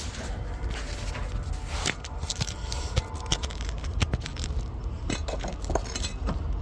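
Irregular scrapes, clicks and knocks of objects being handled, over a steady low rumble.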